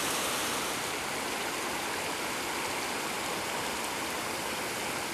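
Flowing stream water, a steady even rush with no change in level.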